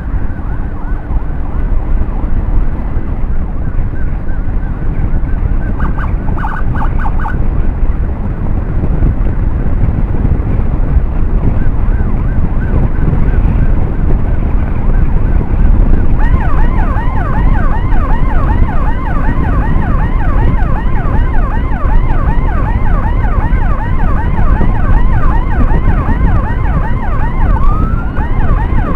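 Emergency siren on a road escort, switching to a fast, rapidly repeating yelp about halfway through, over steady motorcycle engine and wind rumble. A brief pulsing tone sounds about six seconds in.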